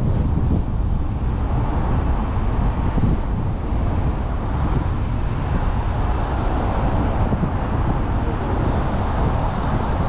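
A car driving along a road: steady tyre, road and engine noise, with a continuous low rumble and no sudden events.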